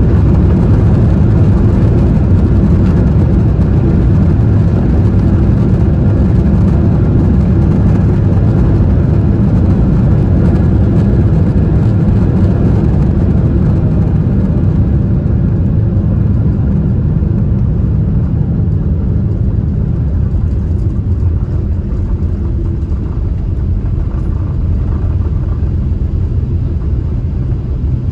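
Cabin noise inside a Boeing 777-300ER on its landing roll: a loud, steady rumble from the GE90 engines and the runway. It eases off gradually over the second half as the aircraft slows.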